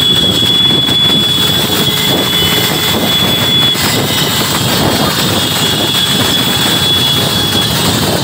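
Steady, dense engine and road noise of a pack of motorbikes and scooters riding at speed, heard from a moving scooter with wind on the microphone, and a thin high steady whine over it for the first half.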